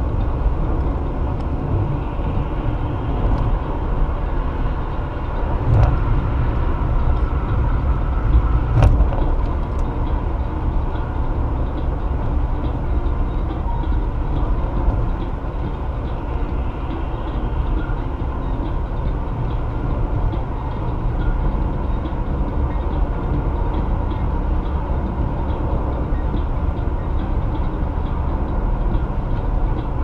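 Steady road and engine noise of a car driving at highway speed, with a couple of brief thumps about six and nine seconds in.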